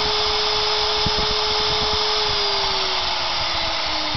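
Small 115-volt, 1/10 hp, 8000 RPM electric motor running unloaded with a steady whine and hiss, very smooth. About halfway through its whine starts to fall in pitch as the motor slows.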